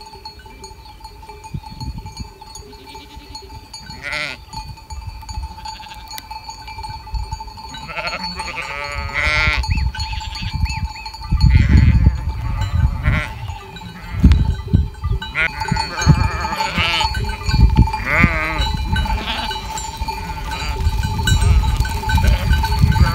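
Sheep and goats of a flock bleating, several separate calls one after another, over low rumbling noise.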